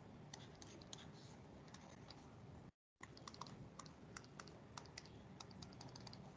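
Near silence with faint, irregular clicks and taps from input on the computer while a dotted line is drawn on the whiteboard. The sound drops out completely for a moment about three seconds in.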